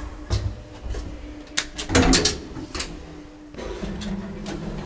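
Lift doors opening or closing: a series of knocks and clicks, bunched together about two seconds in, followed by a steady low hum of the lift machinery.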